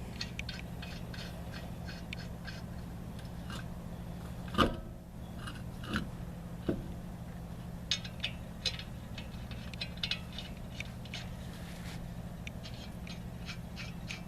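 Lug nuts being threaded by hand onto a car's wheel studs during a spare-tire change: scattered small metallic clicks and scrapes, with one louder knock about four and a half seconds in, over a steady low hum.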